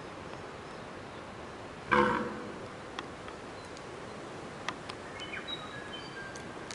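A young red deer stag gives one short, loud roar about two seconds in, a rutting call. Thin whistled bird notes and a few small clicks follow in the second half.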